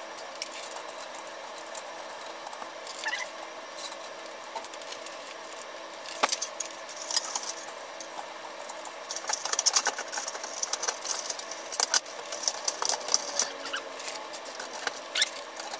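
Wires being tucked away and the sheet-metal ballast cover of a fluorescent light fixture being fitted back on: rustling, scraping and light metallic clicks and clinks, busiest in the second half. A steady faint hum runs underneath.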